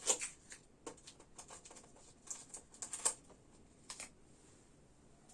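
Scattered soft rustles and taps, a few short ones at a time, from children moving about in a small room.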